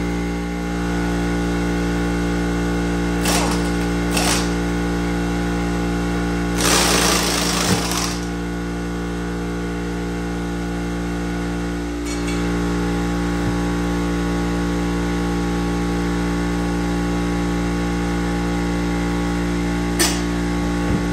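Air impact wrench running the bead breaker's screw in short bursts of rapid hammering: two brief bursts a few seconds in, a longer one of about a second and a half, and one more brief burst near the end. A steady hum runs underneath.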